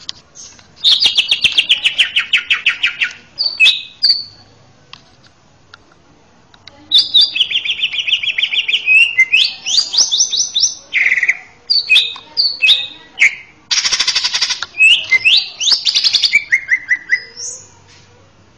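Male cucak ijo (greater green leafbird) singing loudly in two bouts. Each opens with a rapid trill of repeated notes, falling in pitch in the first, and runs on into short rising whistles and chatter. There is a pause of a couple of seconds between the bouts.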